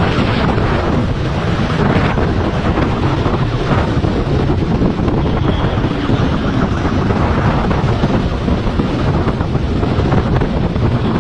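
Steady wind buffeting on the microphone of a camera riding on a moving motorcycle, with the motorcycle's running and road noise underneath.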